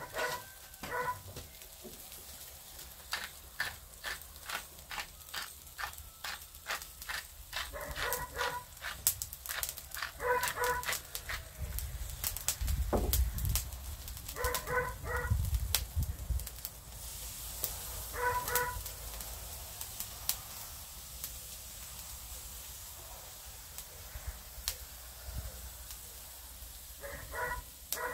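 Pork souvlaki skewers grilling over a charcoal fire, with many sharp crackles and pops from the coals and dripping fat. Through it a dog barks in short bursts of a few barks every few seconds.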